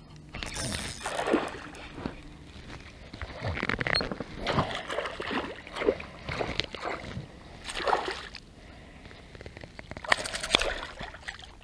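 Small hooked pike thrashing and splashing at the water's surface beside an inflatable boat, in a run of irregular splashes with a flurry near the end.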